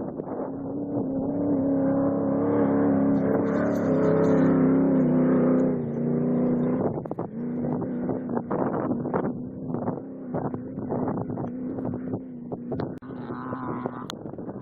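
Off-road race vehicle's engine running, loudest about four to five seconds in, then going on at a slightly lower, steady pitch. Wind gusts on the microphone break over it in the second half.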